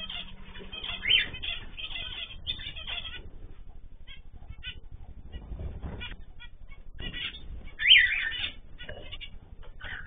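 Small cage birds in a mixed aviary of canaries, zebra finches and cockatiels chirping and calling in a busy run of short chirps, with two louder sweeping calls about a second in and again near eight seconds.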